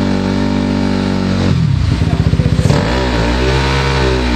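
Dirt bike engine revving hard under load on a steep rock climb. The revs drop to a slow putter about a second and a half in, then rise again near three seconds and hold high.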